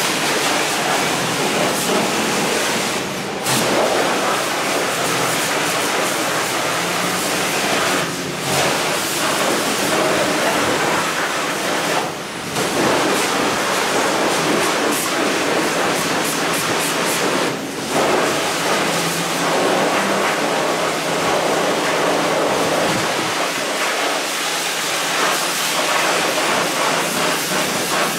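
Car wash pressure-washer wand spraying water onto a mower's engine, a steady loud hiss that breaks off briefly four times as the trigger is let go and squeezed again.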